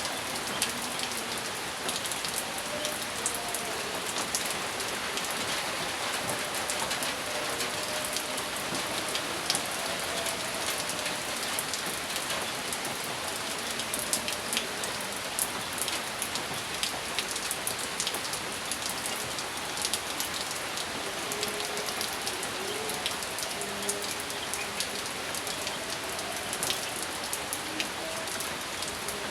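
Steady rain falling, with many individual drops ticking on a nearby surface; no thunder.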